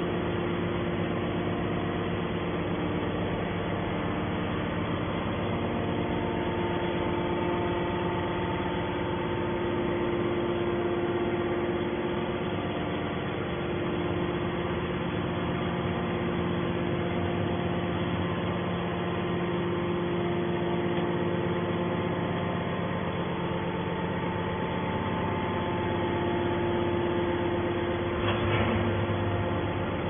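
Hydraulic scrap-metal baler's power unit running with a steady hum made up of several steady tones, the motor and pump idling without load.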